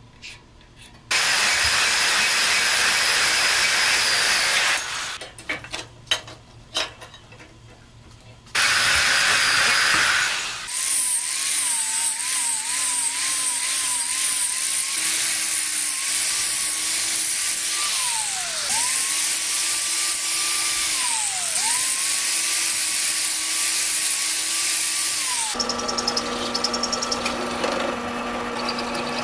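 Angle grinder grinding steel angle iron held in a vise: a harsh grinding hiss over the motor's whine, which wavers as the disc bears on the metal and twice drops and climbs back. Near the end it gives way to a drill press running with a steady hum as it drills steel.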